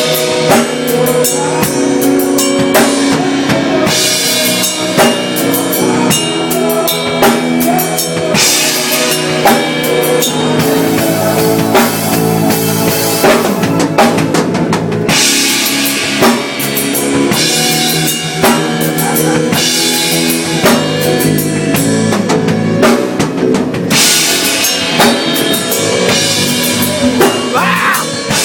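A band playing instrumental music led by a drum kit: bass drum and snare hits with cymbal washes every few seconds over sustained chords.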